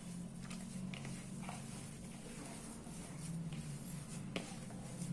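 A hand squeezing and working crumbly rice-flour dough in a plastic bowl, giving soft irregular squishing and rustling with a few small clicks, over a faint steady low hum.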